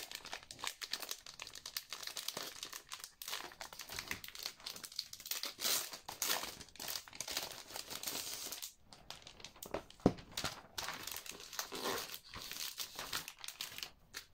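Plastic packaging crinkling and rustling in the hands as a diary is unwrapped and handled, in irregular crackles, with one sharp tap about ten seconds in.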